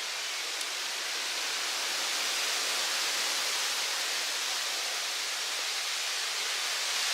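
Steady rushing hiss of wind through the surrounding trees and foliage, swelling slightly about two seconds in.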